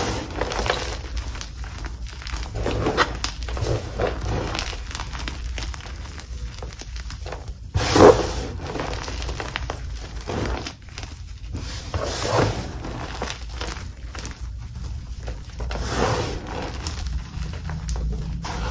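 Hands squeezing and crushing crumbled, air-dried dip-dyed Magking gym chalk: soft, irregular crunching and crumbling of chalk chunks and powder, with a few louder crunches, the loudest about eight seconds in.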